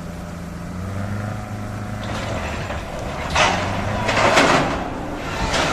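A heavy machine's engine running steadily, joined from about three seconds in by several loud, rough noise bursts.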